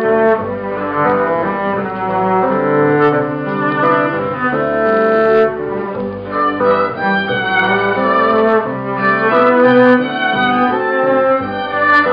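Live band playing an instrumental passage of the song without vocals, led by bowed strings: violin melody over cello.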